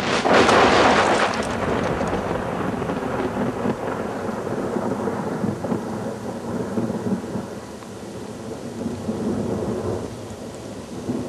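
A sudden loud blast, loudest over its first second or so, then a long low rumble with a hiss over it that eases somewhat near the end.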